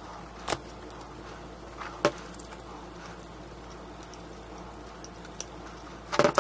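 A few isolated sharp clicks of steel needle-nose pliers and a small plastic propeller being handled as the prop is twisted onto its threaded motor shaft, with a louder cluster of clicks at the very end over a steady low background hum.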